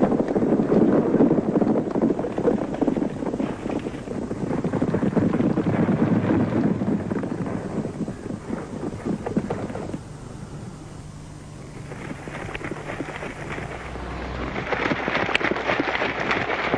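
Horses galloping: a dense, rumbling clatter of hooves that swells, fades and builds again near the end.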